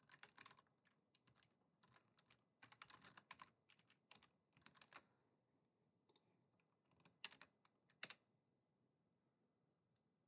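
Faint typing on a computer keyboard, keystrokes coming in short bursts with pauses between, stopping about eight seconds in.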